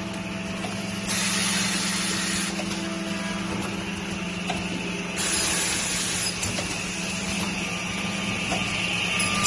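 Woodworking CNC machine running: a steady motor hum under a rushing hiss that swells for a stretch about a second in and again from about five seconds in.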